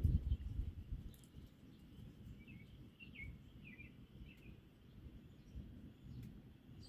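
Low wind noise on the microphone easing off after a gust, with a few short bird chirps about halfway through.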